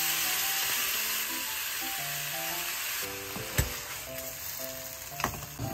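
Food sizzling in a hot frying pan, the hiss easing a little about halfway through, with two light clicks of a utensil. Soft background music plays underneath.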